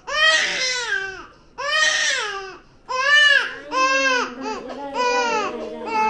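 A three-month-old baby crying hard in pain from vaccination shots: a series of loud, high wails with short gasping breaths between them.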